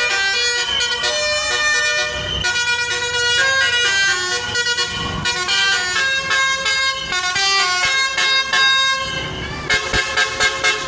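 Basuri telolet bus horn playing a tune in multi-tone notes that change every fraction of a second, switching near the end to quick short toots, about five a second.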